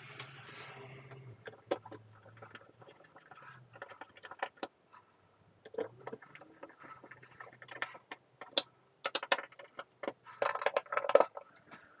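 Plastic clicks and knocks from hands fitting a bathroom pipe ventilation fan's grille unit into its wall opening. The clicks come irregularly, with a dense run of them near the end.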